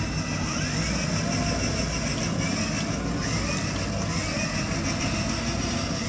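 Small electric ride-on bumper car driving over a concrete floor: a steady rumble of wheels and motor, with several short rising whines.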